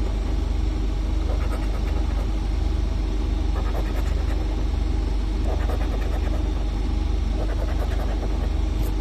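A coin scraping the latex coating off a paper scratch-off lottery ticket in short strokes, heard over a steady low hum.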